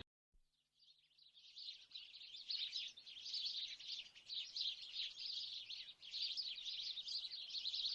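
A flock of sparrows chirping, many calls overlapping in a dense, continuous chatter that fades in about half a second in.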